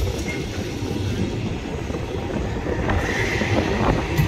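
Blackpool tram running along the rails, heard from inside the car: a steady low rumble with wheel clicks, and a high wheel squeal in the last second or so.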